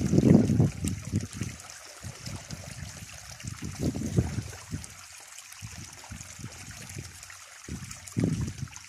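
Water from a homemade, pump-fed highbanker running steadily down its sluice and pouring off the end into a bucket, a constant trickling splash. Irregular low rumbles rise and fall over it, strongest at the start, around the middle and near the end.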